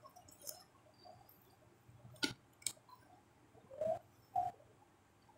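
Quiet mukbang eating sounds: a couple of soft mouth clicks about two seconds in, then two short squeaky sucking sounds near the four-second mark, as fish is picked off the bone and fingers are sucked clean.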